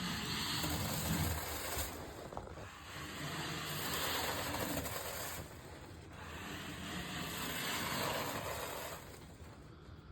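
Popcorn ceiling texture being scraped off with a scraper, a rasping noise in long repeated strokes with short pauses between them.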